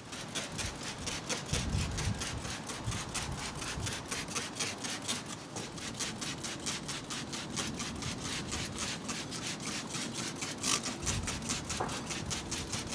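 Hand-held trigger spray bottle squeezed over and over, misting a water-based protectant dressing onto a wet engine bay: a steady run of short spray hisses, several a second.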